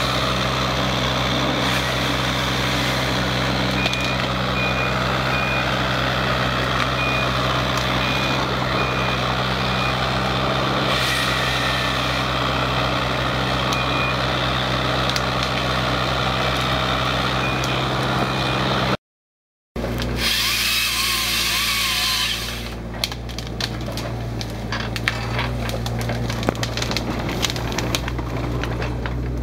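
Mini hydraulic excavator fitted with a tracksaw thinning head: the engine runs at a steady hum for most of the time. After a brief dropout, the saw head works into pine stems, and a run of sharp cracking and snapping of wood and branches follows near the end.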